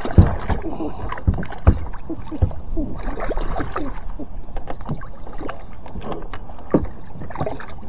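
A small catfish splashing at the surface beside a plastic kayak as it is hauled in on the line, with irregular knocks and thumps against the hull, the sharpest few in the first two seconds.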